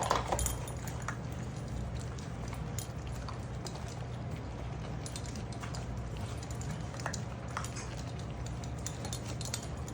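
Six-week-old puppies eating dog food, with scattered small clicks and clinks of food and feeding dish over a steady low hum.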